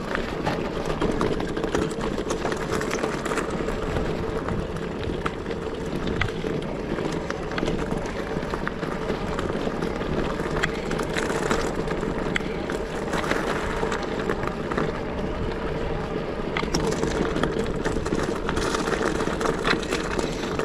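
Steady rushing road and wind noise from a bicycle ride, with frequent small clicks and rattles throughout.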